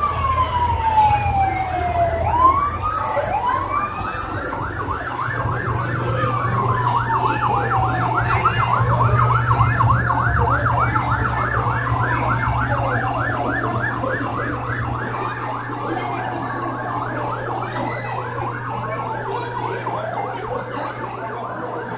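Electronic siren of a child-size emergency vehicle, over a steady low hum. It gives a slow wail falling and rising in pitch, switches about five seconds in to a fast yelp of about four to five sweeps a second, and slows back to long glides after about fourteen seconds.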